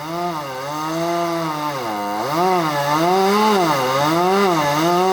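Two-stroke chainsaw running and cutting, its engine pitch repeatedly dipping and climbing back up as it works through the wood. It grows louder over the first second or so.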